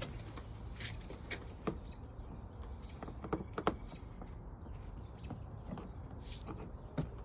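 Scattered light clicks and taps of a hand tool working nails out of brittle old asbestos siding. There are a few sharper knocks about three to four seconds in and one more near the end.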